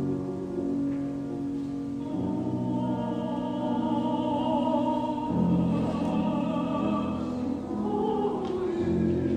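Background music: operatic singing with a wavering, sustained vocal line over held chords that change every few seconds.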